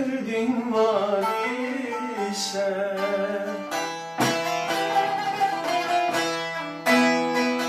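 Music of a Turkish folk song, led by a plucked string instrument playing a wavering, ornamented melody line.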